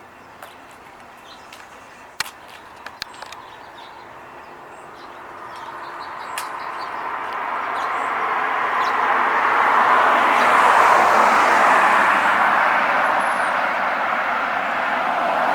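A motor vehicle approaching along a road, its rushing tyre and engine noise swelling from about a third of the way in and staying loud. A few faint clicks sound over the quieter start.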